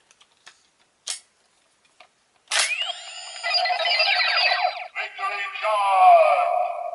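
A few plastic clicks, then from about two and a half seconds in the Power Rangers Megaforce Gosei Morpher toy plays loud electronic sound effects and music through its small speaker, set off by the power card put into it.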